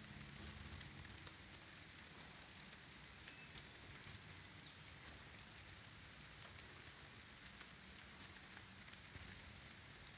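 Faint light rain, with scattered drops ticking irregularly, several a second.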